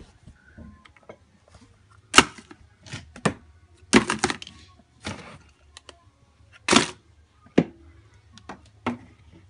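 Small household objects handled and dropped, giving a run of irregular sharp clicks and clacks, the loudest about two, four and seven seconds in, with short bursts of plastic rustling from a garbage bag.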